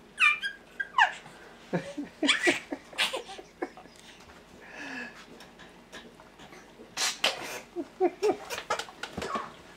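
Baby laughing and squealing in short, repeated bursts.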